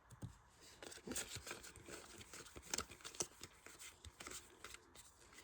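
Faint crinkling and tearing of a foil trading-card booster pack wrapper, with scattered light clicks and rustles as the cards are handled.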